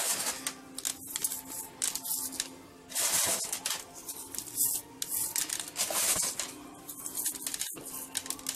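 Hands rubbing and sprinkling coarse rock salt onto raw pork ribs: irregular gritty rustles and scrapes of salt grains on meat and skin.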